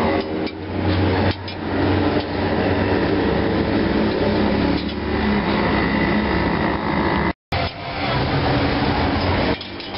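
Gas burner under a flat griddle roaring steadily, with a metal spatula scraping and tapping the hot plate a few times as toast slabs are turned and stacked.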